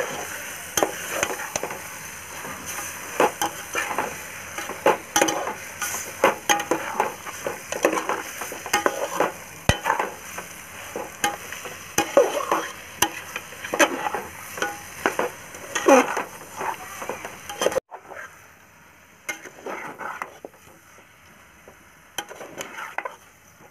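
A metal spoon scraping and stirring chicken pieces in masala around an aluminium pot in quick repeated strokes, over a frying sizzle. The stirring drops suddenly to a quieter, sparser scraping about three-quarters of the way through.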